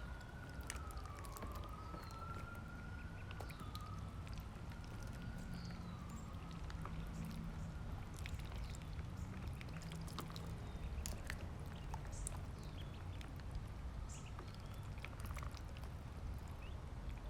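Ducklings peeping and pecking at food, with scattered faint ticks and short high chirps over a low steady rumble. A siren wails, rising and falling, through the first five seconds or so.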